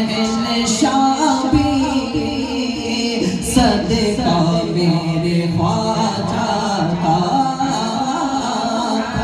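A manqabat, a devotional Sufi song: singing held in long, drawn-out melodic lines over musical accompaniment.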